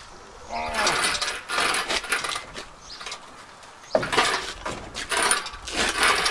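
Engine hoist loaded with a Ford 400 V8 and its C6 transmission being rolled back out of the truck: metal rattling, clanking and squeaking from the casters, boom and chain, in two spells, about a second in and again about four seconds in.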